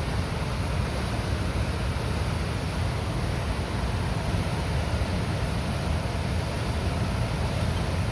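Water released from a river dam gushing and churning through the gates, a steady heavy rush with a deep rumble.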